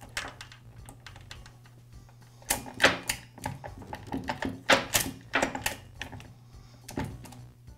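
Saw chain and guide bar clicking and clattering as they are handled and fitted to a Husqvarna chainsaw by hand: a run of sharp metallic clicks, with a few louder clacks around the middle.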